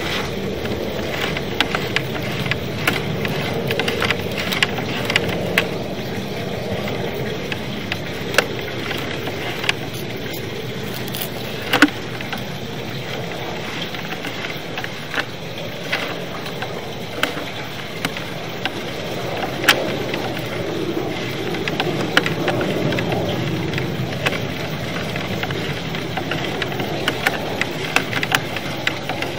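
A drain inspection camera's push cable being fed through a drain pipe: irregular sharp clicks and knocks over a steady rushing noise.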